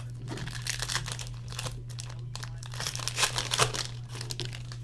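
Crinkling and tearing of a trading-card pack's foil wrapper as it is ripped open by hand, busiest and loudest about three seconds in.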